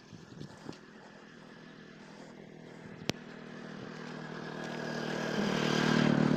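An engine running at a steady pitch, growing steadily louder through the second half, with a single sharp click about three seconds in.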